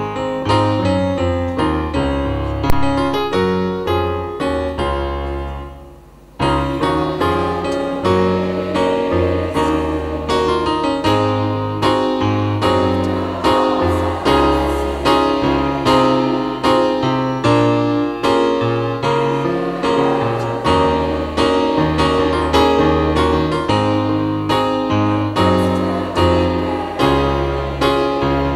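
Instrumental keyboard music, a steady run of struck notes and chords. About six seconds in it fades away and then starts again suddenly.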